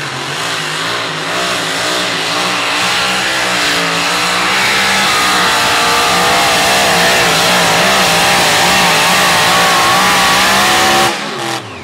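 Supercharged engine of a Chevrolet pulling pickup at full throttle, dragging the weight sled, its pitch wavering up and down. It shuts off abruptly near the end.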